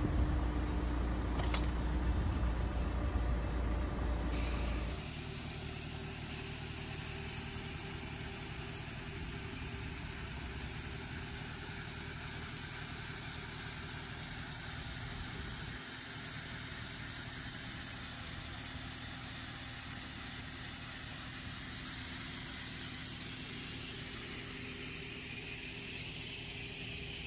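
Tractor engine running loudly for the first few seconds. About five seconds in, the sound changes to a steady scraping hiss: the hydraulically driven steel wire brush of a Kadıoğlu KCP80 kerb weeder spinning against the kerb and asphalt, scouring out weeds and dirt. It runs evenly until a change near the end.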